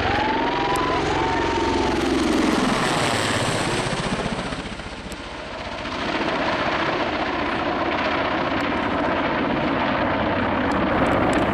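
AS532 Cougar military transport helicopter flying a display, its main rotor and turbines running with a dense, steady noise. The sound fades briefly about five seconds in, then comes back at full strength.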